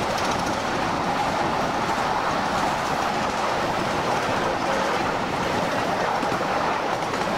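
Ride-on miniature steam railway train running along its narrow-gauge track, heard from aboard a passenger car: a steady, even running noise of the wheels on the rails.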